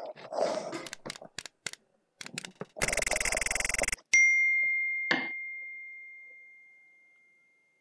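Subscribe-button animation sound effect: about a second of dense rushing noise, then a single bright bell ding that rings on and fades over about three seconds. A few soft clicks come before it.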